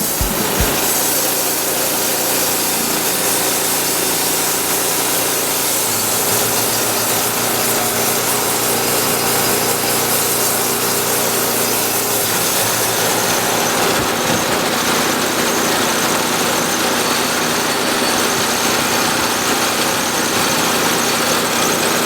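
Wood-Mizer LT10 portable band sawmill running under load, its band blade cutting steadily through a red elm log.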